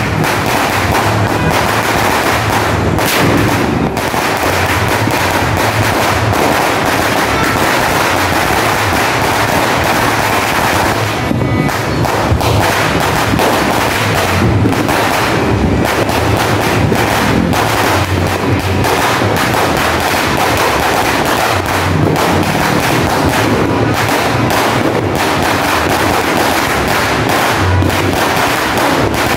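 A Sinturon ni Hudas firecracker belt of thousands of rounds going off in one continuous, rapid string of sharp bangs with no pause, over background music.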